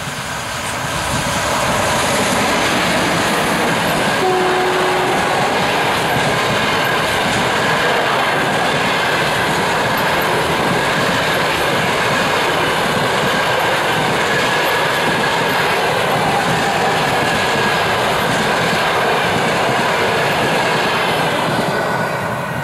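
EP2K electric locomotive and its express passenger coaches passing close by. The sound builds over the first two seconds as the locomotive goes past, then holds as a loud, steady run of the coaches' wheels over the rails, and falls away near the end as the last coach clears. A brief steady tone sounds about four seconds in.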